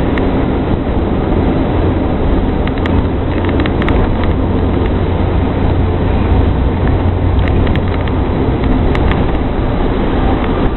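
Steady drone of a vehicle's engine and tyres heard from inside the cabin while driving, with scattered light clicks and rattles.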